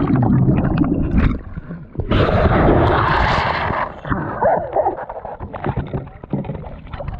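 Water splashing and sloshing as a person tumbles out of a kayak into shallow river water and thrashes about, with a loud rushing stretch about two seconds in that lasts roughly two seconds.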